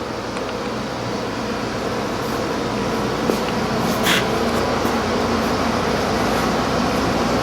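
Steady hum and rush of a running air conditioner, with a brief faint high sound about four seconds in.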